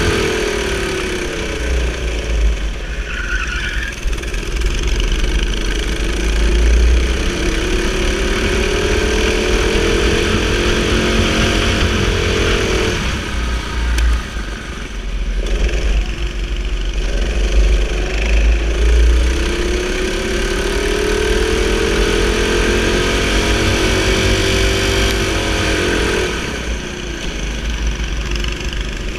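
Go-kart engine at full throttle, its pitch rising steadily along a straight, then dropping sharply as the throttle is lifted for a corner; this happens twice, over a low rumble.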